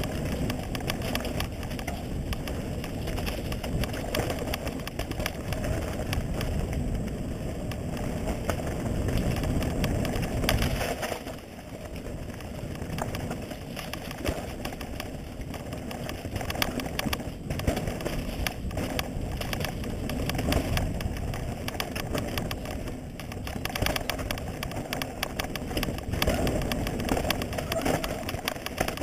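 Mountain bike ridden fast down a dirt forest trail: wind rushing on the microphone, tyre rumble, and a constant clatter of chain and frame over roots and bumps. It eases off briefly about eleven seconds in.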